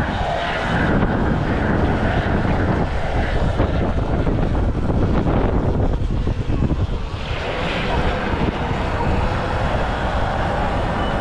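Wind rushing over the camera's microphone and road rumble while riding a Sur-Ron X electric dirt bike along a paved street, with a faint wavering whine in the second half.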